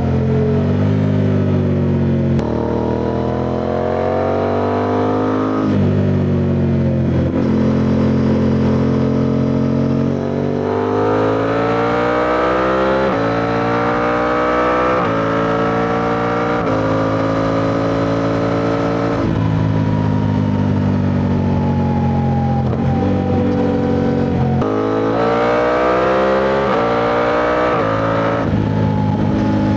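Suzuki V-Strom 800DE's parallel-twin engine under way, accelerating up through the gears: the pitch climbs and drops back at each shift, about four times in the first half. Past the middle it winds down as the bike slows, then pulls up through the revs again near the end.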